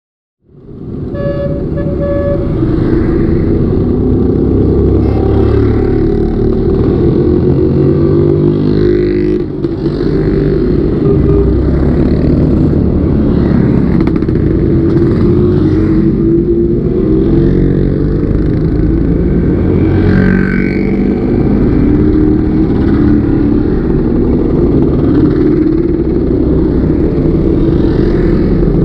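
A procession of motor scooters riding past. Many small engines run and rev over one another in a loud, continuous drone, with two short beeps about a second in.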